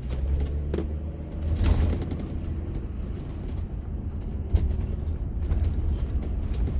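An RV's engine and road rumble heard from inside the cab as it drives off, with a few short clicks and rattles.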